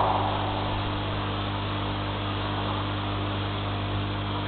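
Steady electrical hum with overtones and a constant hiss from a surveillance camera's microphone, with no animal call standing out; a louder sound just before fades out at the very start.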